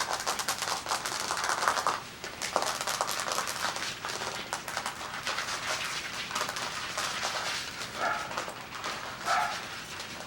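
Coton de Tulear puppies at play: constant scuffling and scratching of paws and claws, with a few short high whines or yips, the loudest about a second and a half in and two more near the end.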